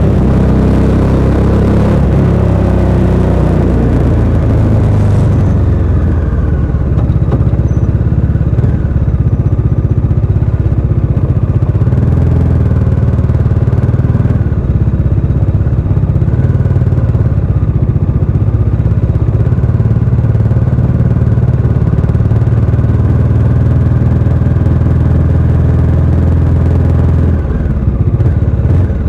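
Bajaj Dominar 400's single-cylinder engine running through its stock exhaust, a steady low note, with extra hiss in the first few seconds that then drops away.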